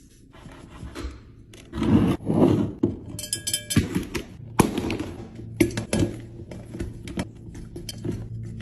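Containers and bottles being put into a refrigerator during restocking: a run of knocks, clinks and scrapes, with a short burst of rustling about two seconds in and a brief ringing clink a little after three seconds.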